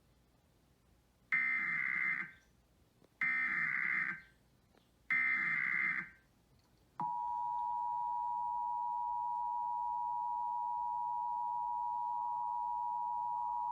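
Emergency Alert System SAME header: three short bursts of screeching data tones about two seconds apart, followed about seven seconds in by the steady two-tone EAS attention signal, which opens a statewide test alert.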